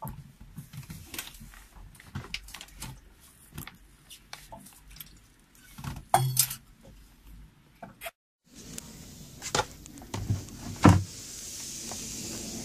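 Scattered small clicks, knocks and rattles of hands working a rubber hose coupling and its metal hose clamps in a marine engine bay. A steady hiss builds near the end.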